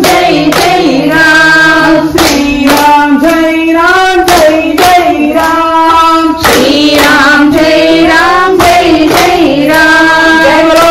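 Voices singing a devotional Rama bhajan in unison, with sharp hand claps keeping the beat, often two or three close together.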